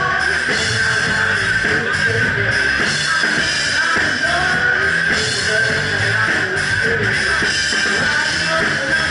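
Live rock band playing at full volume: electric guitar and a Ludwig Vistalite drum kit, with a woman singing into a microphone.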